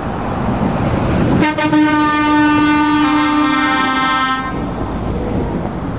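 Truck air horn blowing a loud chord of several notes for about three seconds, the chord shifting partway through, over the noise of a truck engine.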